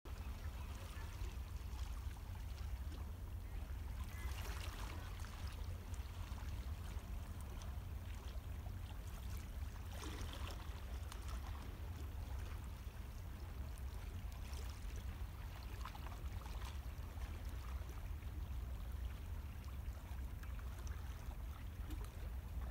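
Calm sea lapping gently against shoreline rocks, a few soft washes of water a few seconds apart over a steady low rumble.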